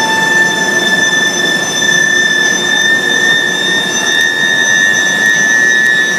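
Induction heating furnace for square steel billets running: a steady high-pitched whine with fainter higher tones above it, over a constant noise of machinery.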